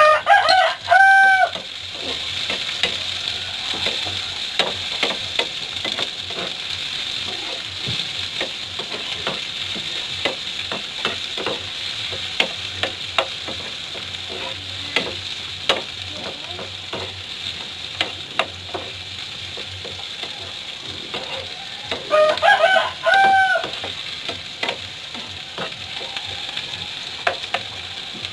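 Vegetables sizzling in a hot oiled pan while a metal ladle-spoon stirs them, scraping and tapping against the pan. A rooster crows twice, loudly: once at the very start and again about 22 seconds in.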